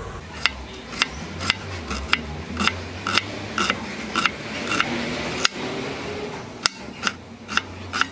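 Chef's knife dicing a red onion on a bamboo cutting board: sharp knocks of the blade on the board, about two a second, with a short pause a little past halfway.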